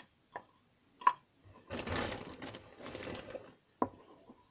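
A plastic stirring stick tapping and scraping against the inside of a small plastic tub as a thick slime mixture is stirred: a few separate taps, then about a second and a half of fast continuous scraping, then one more tap.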